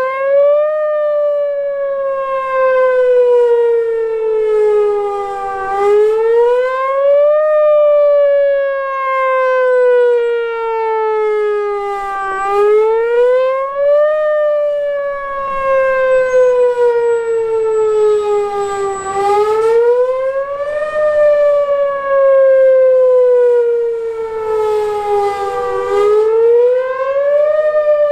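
Whelen Vortex outdoor warning siren sounding during its weekly test. Its single tone climbs quickly, then slides slowly down, over and over about every seven seconds.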